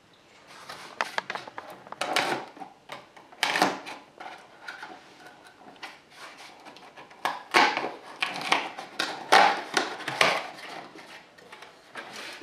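Hands opening a cardboard beer advent calendar: irregular crackling, tearing and rustling of the cardboard door, with small knocks as a bottle is worked out of its compartment. The loudest flurries come about a third of the way in and again in the second half.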